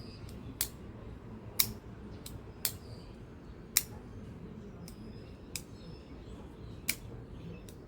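Trivisa Dolphin liner-lock folding pocket knife on bronze washers being flicked open and closed repeatedly, with sharp clicks as the blade snaps out and locks up or shuts. About ten clicks come at uneven intervals.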